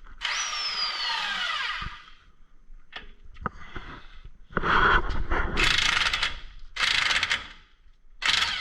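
Impact wrench on the 21 mm nut of a truck's tie rod end: a short run whose motor pitch falls as it spins down, then from about halfway two longer loud bursts of rapid hammering as the nut is worked loose.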